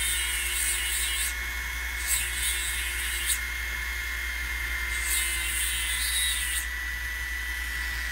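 Jeweler's flex shaft running a small sanding disc on a mandrel with a steady high whine. The disc grinds against the ends of a metal ring blank in three bouts of hissing, squaring the joint for soldering.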